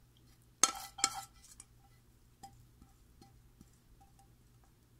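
A frying pan clinking against the rim of a glass pie dish as sautéed vegetables are scraped out of it: two sharp ringing clinks about half a second apart, then a few faint taps.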